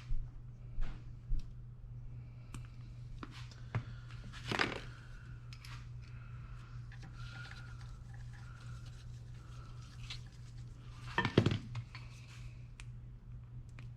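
Scattered clicks, clinks and scrapes of tools and metal parts being handled at a workbench, the loudest cluster about eleven seconds in, over a steady low hum.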